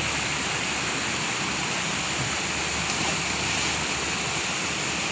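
Steady rushing of stream water flowing over rocks.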